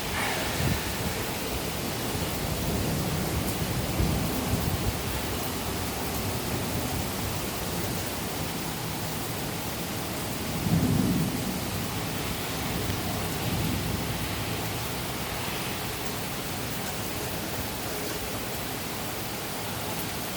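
Steady rain falling in a thunderstorm, picked up some but not heavy, with a brief low rumble of thunder about halfway through.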